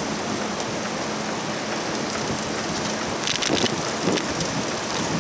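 Wind rushing over the microphone while riding a bicycle, with steady tyre and road noise. About three seconds in there is a brief high rattle.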